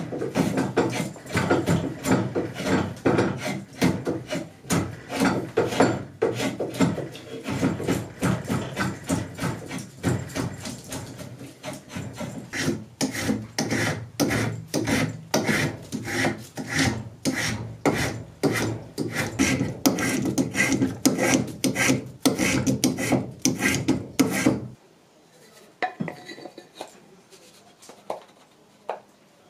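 A hand file scraping back and forth along a wooden tool handle in quick, even strokes, about two a second, shaping the wood. It stops suddenly near the end, leaving only a few faint taps.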